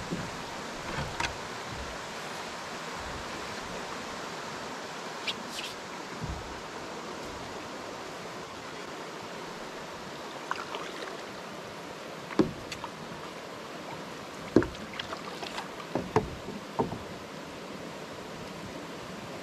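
Steady rush of water from a small waterfall and its run-off, with a few sharp knocks and splashes from a wooden canoe being boarded and paddled: the paddle bumping the hull and dipping into the water.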